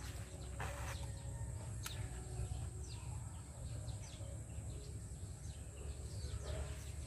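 Small birds chirping outdoors, repeated short falling chirps over a steady low rumble, with one sharp click about two seconds in.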